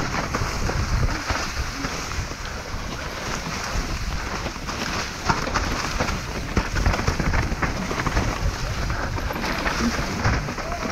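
Mountain bike riding fast down a rough trail: tyres rolling over rock and dirt with constant rattling and frequent knocks, and wind on the microphone.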